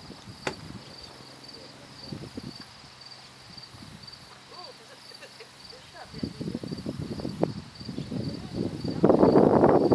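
Insects chirping in a steady, high, pulsing rhythm of about two to three pulses a second. From about halfway through, uneven rushing noise builds, loudest in the last second.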